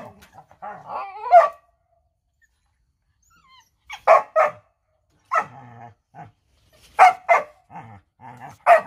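Dog barking in short, sharp barks, several in quick pairs, starting about four seconds in after a brief quieter spell. The barking is playful.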